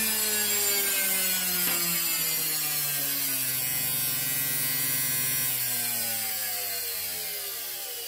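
Brushed washing-machine motor spinning under a TDA1085C phase-control speed board. Its whine falls steadily in pitch as the motor slows, and it grows quieter near the end as it winds down.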